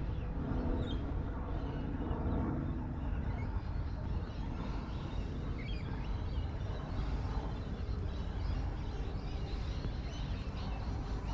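Outdoor shoreline ambience: a steady low rumble, with faint short bird chirps here and there.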